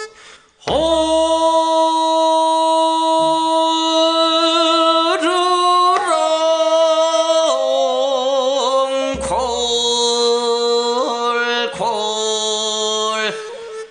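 A man singing solo in the Korean classical jeongga style. He holds long, slow notes with a gentle waver and now and then steps up or down in pitch. He breaks off briefly for breath about half a second in, again around nine seconds and again near twelve seconds.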